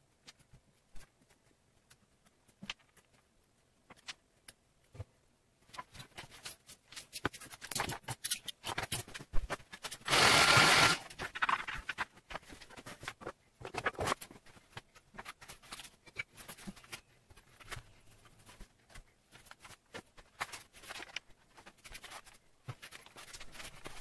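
Hand tools and leather scraps being handled and cleared off a plastic cutting board: scattered clicks, taps and scrapes, with one loud even rushing noise lasting about a second around ten seconds in.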